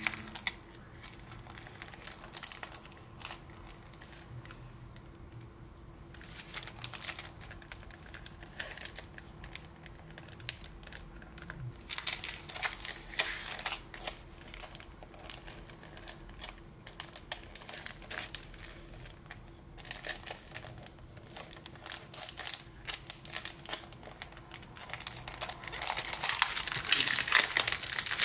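Clear plastic cello packaging around scrapbooking papers and die-cuts crinkling as it is handled and smoothed flat, in irregular bursts of crackles with a quieter stretch early on, growing louder near the end.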